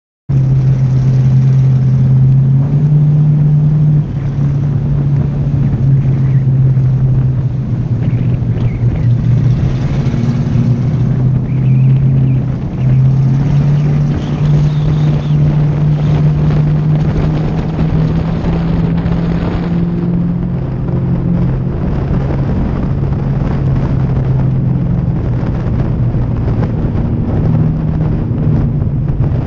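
Pure stock race car engine running hard around an oval, heard from a hood-mounted camera. Its pitch steps up and down every few seconds as the car is driven through the straights and turns. The sound cuts in suddenly just after the start.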